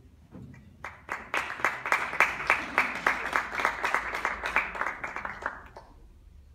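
A small audience applauding. The clapping starts about a second in and dies away near the end.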